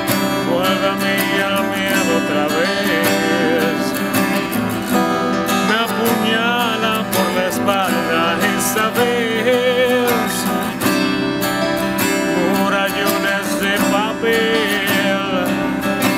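Two acoustic guitars strummed and picked in a folk song, with a wordless vocal melody wavering above them at several points.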